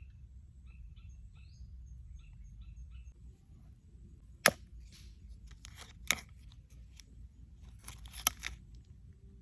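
Three sharp snaps or knocks, roughly two seconds apart, with softer rustling between them; small birds chirp faintly in the first few seconds.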